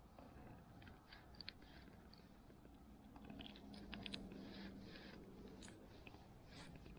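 Near silence with faint small clicks and scratches of hands unhooking a small perch from a metal jigging spoon, busiest in the middle.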